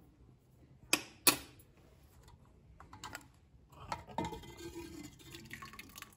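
Steel spoon clinking against a stainless steel pressure cooker container of cooked rice: two sharp clinks about a second in, then softer scraping and scattered clicks as the rice is stirred and the container is handled.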